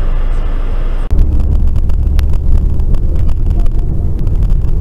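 Car cabin noise picked up by a dashboard camera: a steady road and engine rumble that changes abruptly about a second in to a louder, deeper rumble with scattered light ticks.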